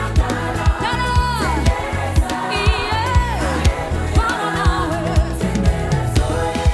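Gospel worship song: a singer holds long notes and slides down from them over a band with a steady drum beat, bass and keyboards.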